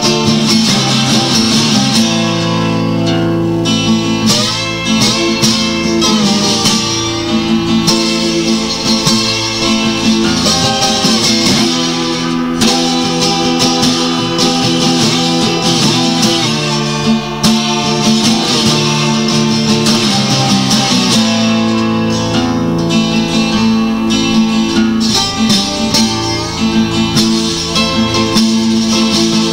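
Guitar-led music with plucked and strummed guitar.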